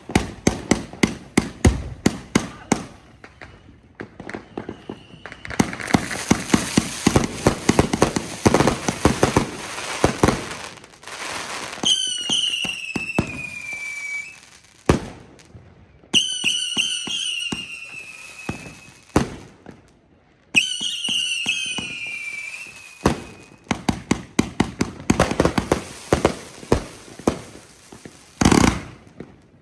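238-shot firework cake firing: rapid volleys of sharp shots, a long stretch of dense crackling, then three whistling shots about four seconds apart, each whistle falling in pitch. More fast shots follow, ending with one big bang near the end.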